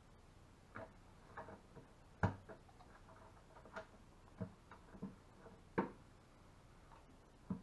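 Irregular sharp clicks and snaps of hard plastic as a hole is cut by hand into the side of a 5-gallon plastic bucket, the loudest a little over two seconds in and again near six seconds.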